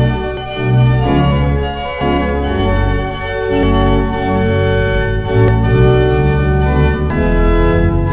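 Church organ playing a piece of sustained chords over a deep, moving pedal bass line.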